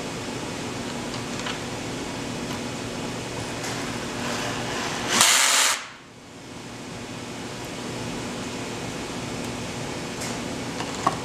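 Steady mechanical hum of a fan, broken about five seconds in by one short, loud burst of noise, after which the hum dips and slowly comes back.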